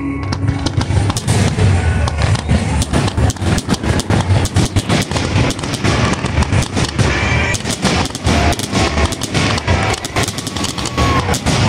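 Rapid barrage of aerial firework shells launching and bursting, many sharp reports overlapping without a break.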